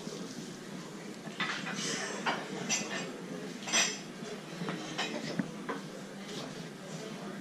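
Plates and cutlery clinking at a breakfast buffet: a scatter of sharp clinks in the middle, the loudest about four seconds in, over steady room noise.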